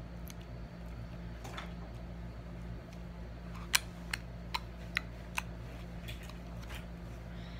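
White slime being worked out of a small clear plastic container by hand, giving a run of five sharp little clicks a little past halfway, about two or three a second, over a steady low hum.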